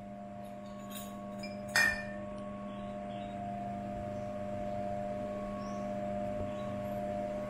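Amber glass swing-top bottles clinking: a light tap about a second in, then one sharp, ringing clink just under two seconds in. A steady hum runs underneath.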